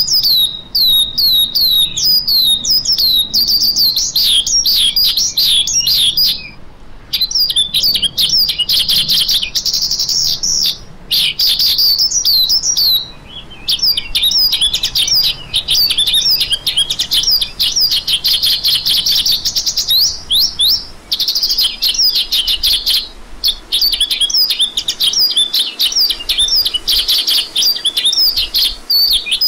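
Branjangan (Horsfield's bush lark) song: a rapid, nearly continuous run of sharp high chirps and quick whistled slurs, several a second, broken by brief pauses a few times.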